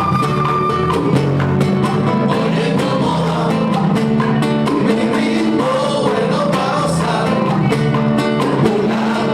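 Son cubano band music with a steady dance rhythm, and singing at times.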